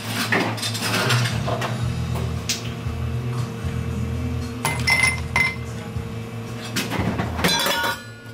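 Ice cubes tipped from a metal ice scoop into small glass tumblers, clinking against the glass in several short clusters a second or more apart.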